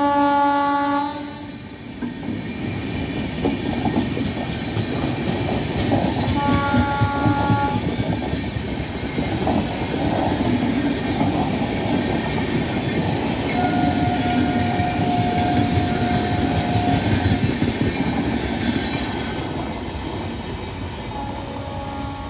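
Passenger train coaches running past close by, a steady rumble with the clatter of wheels over rail joints that fades as the train moves away near the end. A multi-tone train horn stops about a second in and sounds again for about a second and a half around seven seconds. A single high steady tone holds for about three seconds in the middle, and a horn starts again at the very end.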